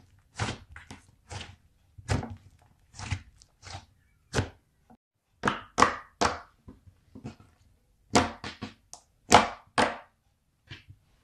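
Butter slime being worked by hand: about twenty short, irregular squishes and slaps as it is pressed and pulled.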